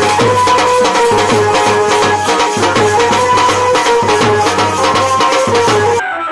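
Loud background music with a steady fast beat, shaker-like percussion and a held melody; about six seconds in it cuts off and a quieter plucked-string passage begins.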